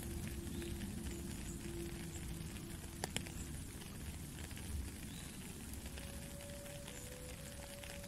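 Steady rain falling and pattering on a puddle, with a soft indigenous flute over it: one low held note ends about three seconds in, and higher held notes start about six seconds in. A single sharp click comes about three seconds in.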